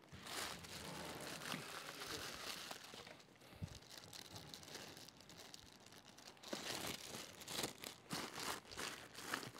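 Clear plastic wrapping crinkling and rustling as it is pulled off a large camera lens. The crackling thins out in the middle and picks up again for the last few seconds.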